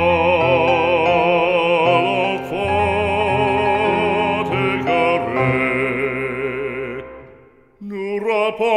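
Background music: a French religious song, a singer holding long notes with vibrato over instrumental accompaniment. It fades almost to silence about seven seconds in, then starts again near the end.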